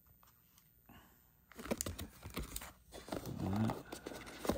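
Paper and cardboard handling: rustling, with sharp taps and clicks of a card and a box being moved, starting about a second and a half in. A short murmured voice sounds briefly near the middle.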